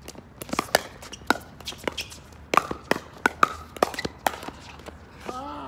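Pickleball rally: paddles striking the plastic ball and the ball bouncing on the hard court, an irregular run of sharp pocks and taps. A short voice comes in near the end.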